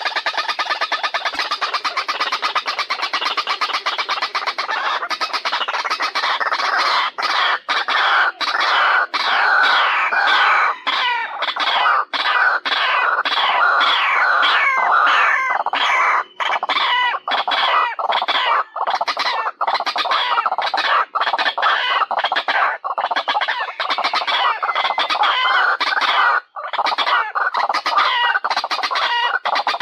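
White-breasted waterhen calling: a continuous run of rapid, harsh repeated notes, with a few short breaks.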